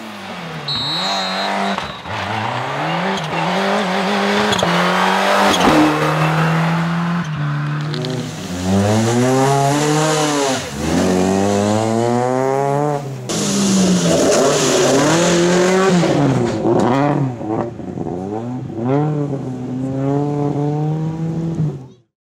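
Rally car engines revving hard through gear changes, the pitch climbing and dropping over and over as the cars power past, with some tyre squeal. The sound cuts off suddenly near the end.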